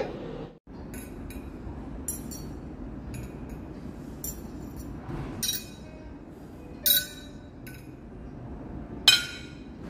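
Glassware and cutlery clinking on a set dining table, several sharp clinks over a steady room hum, the loudest near the end.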